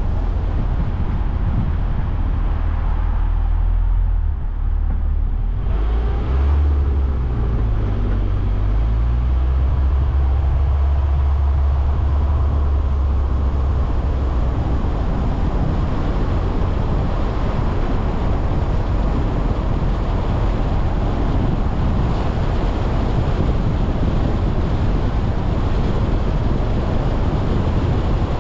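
A car driving along a road: a steady rush of tyre, road and wind noise under a low engine hum. The hum shifts in pitch several seconds in and fades into the rushing noise about halfway through.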